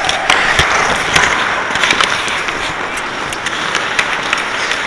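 Ice hockey play heard from inside a goalie's helmet: skate blades scraping the ice, with many sharp, irregular clacks and knocks of sticks on the ice and puck, one louder knock about half a second in.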